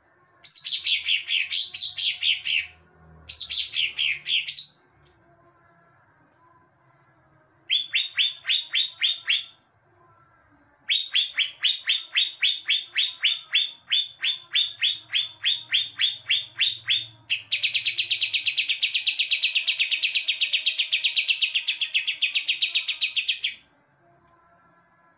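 Caged green leafbird (cucak ijo) singing sparrow-like chirps that it has learned from the Eurasian tree sparrow. It gives two short bursts of quickly falling notes, then long runs of fast repeated chirps, and ends with a steady rapid trill of about six seconds that stops abruptly.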